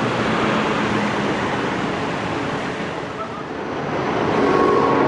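Steady outdoor city noise outside a large railway station, a wash of traffic and crowd hum, dipping about three and a half seconds in. Near the end a chiming melody with held tones begins.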